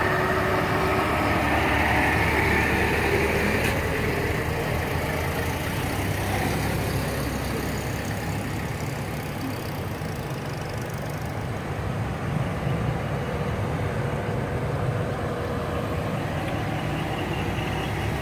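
A line of antique and classic cars rolling slowly past at low speed, engines running steadily.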